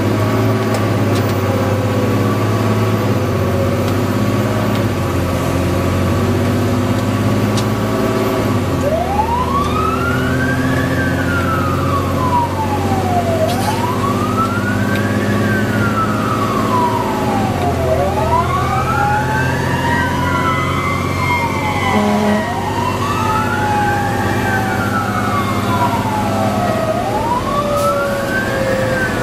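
Fire engine driving under way, its engine running steadily, with a siren wailing from about nine seconds in, rising and falling roughly every four to five seconds.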